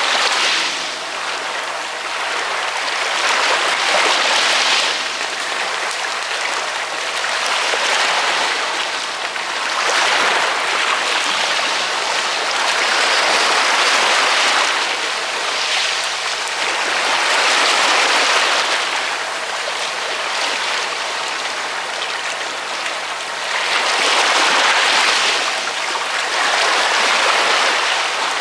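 Ocean waves breaking and washing on the shore: a continuous hiss of surf that swells and eases every three to six seconds.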